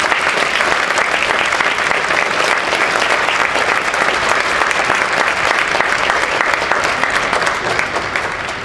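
Audience applauding: a steady, dense clatter of many hands clapping, easing a little near the end.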